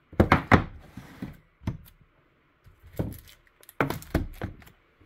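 Cigar boxes being set down and shuffled on a wooden table: a quick run of knocks at the start, single knocks about a second and three seconds in, and another run of knocks near the end.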